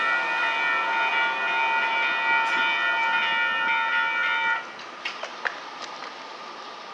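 Railroad grade-crossing warning bell ringing steadily, then cutting off suddenly partway through, followed by a few sharp clicks.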